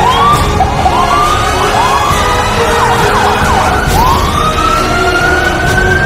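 Fire truck siren on an aerial ladder truck leaving on an emergency response: a string of short rising whoops, a quick rapid up-and-down yelp about halfway, then a long wail that climbs and holds near the end.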